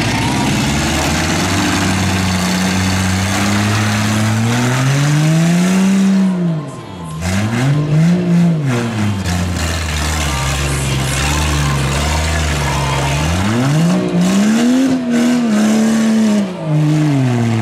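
Truck engines revving hard in a demolition derby, the pitch repeatedly climbing and dropping as the drivers floor the throttle and back off, over a steady noisy background.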